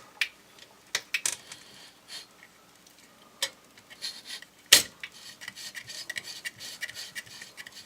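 Handling and disassembly noises from a Sears SR2000 electric typewriter worked on with a screwdriver: scattered clicks and scrapes of its metal and plastic parts, one sharp knock about halfway, then a quick run of small ticks near the end.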